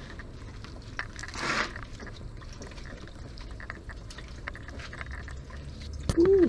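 Hands working the upper radiator hose at its corroded connection on the radiator: small clicks and scraping, a hissing scrape about a second and a half in, and a short pitched squeak near the end.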